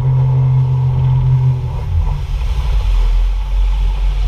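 A loud, steady, low-pitched engine hum that shifts slightly in pitch about two seconds in.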